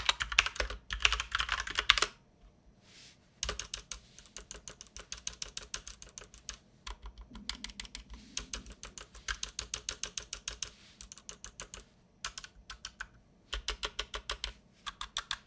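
Typing on a Genesis RX85 mechanical keyboard with Kailh brown switches: fast runs of key clicks, loudest in the first two seconds, broken by a few short pauses.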